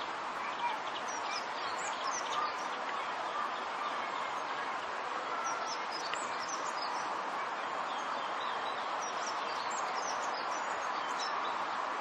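Meltwater trickling steadily over icicles, with small birds chirping in short high notes on top.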